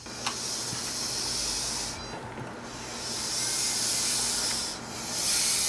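Small wheeled robot's electric drive motors running in bursts, a high hissing whir that stops briefly about two seconds in and again near the end as the robot drives and turns.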